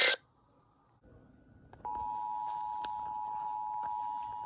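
Radio audio cuts off abruptly at the start. After a short near-silence, a steady two-tone Emergency Alert System attention signal begins about two seconds in, sounding as it does ahead of an alert message.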